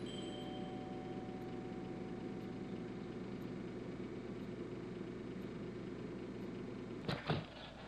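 Steady low mechanical hum of room tone. About seven seconds in come two sharp knocks a fraction of a second apart.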